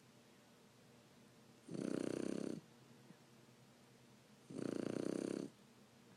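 Shar Pei puppy snoring in its sleep: two snores about three seconds apart, each lasting about a second, with quiet breathing between them.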